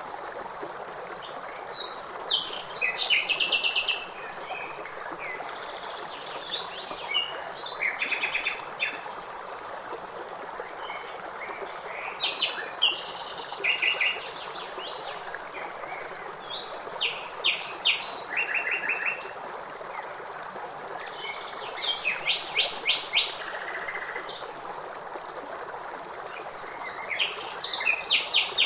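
Forest ambience: several birds calling in clusters of rapid chirps and trills every few seconds, over a steady background hiss.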